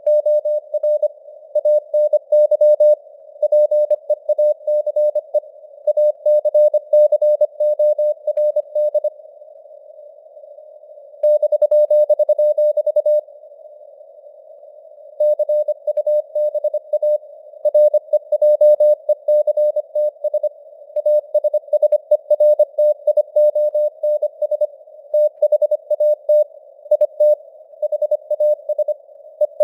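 Morse code at 25 words per minute: a single mid-pitched sine tone keyed on and off in rapid dots and dashes, with simulated radio noise hissing around it in a narrow band. The keying stops for short pauses between groups, leaving only the hiss.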